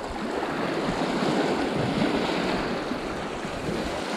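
Small waves lapping and washing over a pebble lakeshore, steady and unbroken, with wind buffeting the microphone.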